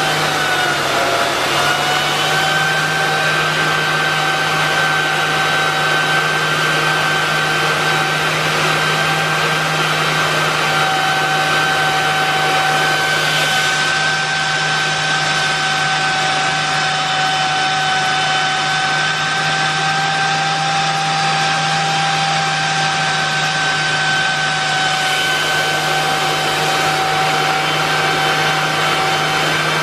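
Miele S8590 canister vacuum's 1200-watt motor running steadily during an airflow measurement: a steady whine over a rush of air. About a second in, its pitch dips briefly, then recovers.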